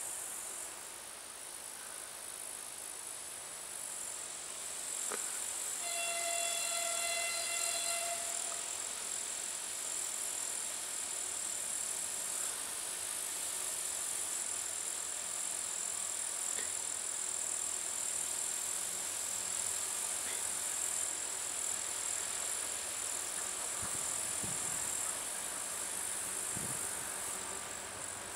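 Steady high chirring of insects, over which a 2TE116 diesel locomotive's horn sounds one steady high note for about two seconds, about six seconds in. A faint low rumble of the approaching locomotive comes in near the end.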